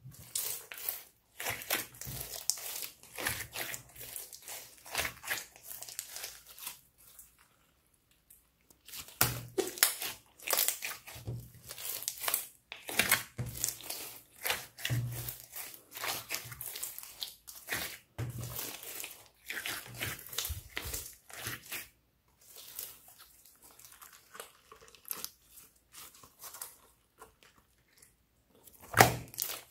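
A large mass of glossy glitter slime being kneaded, squeezed and stretched by hand: wet squishing with many small clicks and crackles in uneven runs, pausing for a couple of seconds about a third of the way through.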